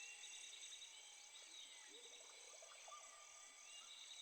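Faint outdoor chorus of insects, a steady high pulsing about two to three times a second over a constant high buzz, with scattered short bird whistles and rising calls.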